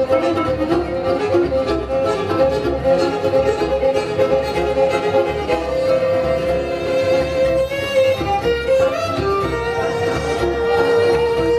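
Instrumental music led by a bowed fiddle melody of held notes, over a steady low beat.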